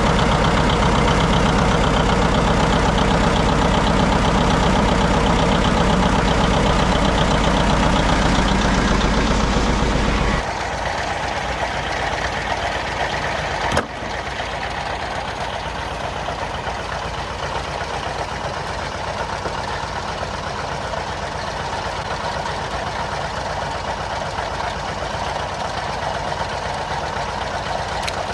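Vintage tractor engine running steadily with a heavy low rumble. About ten seconds in, the sound shifts abruptly to a quieter, thinner engine sound, and a single sharp click follows a few seconds later.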